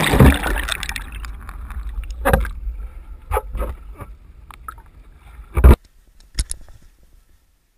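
Sea water splashing and gurgling around a camera dipped under the surface: a loud rush of water that fades over a couple of seconds. Several sharp knocks follow, the loudest about five and a half seconds in.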